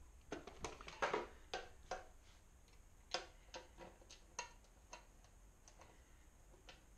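Light, irregular clicks and taps of small metal parts and hand tools being picked up and handled, thickest in the first two seconds and again from about three to five seconds in, then thinning out.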